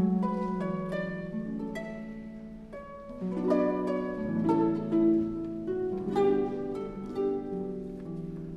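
Harp music: a slow melody of plucked notes that ring on over lower sustained notes.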